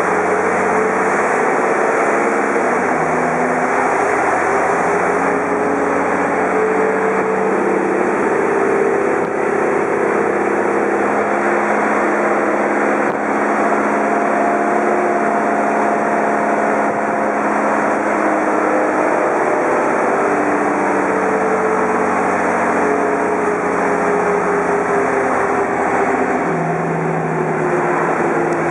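Menarini 201/2 NU city bus engine running under way, heard from inside the passenger cabin over steady road noise. The engine note climbs and drops back several times as the bus accelerates and changes gear.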